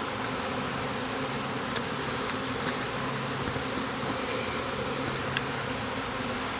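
A honey bee swarm buzzing: the steady, dense hum of many bees together as the swarm marches into a hive box.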